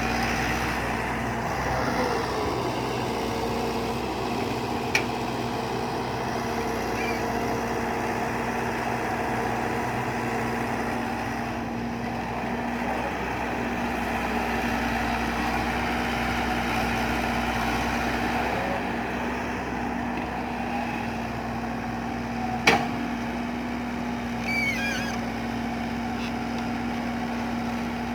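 Excavator engine running steadily at a constant pitch. A sharp knock comes about three-quarters of the way through, with a fainter click earlier on.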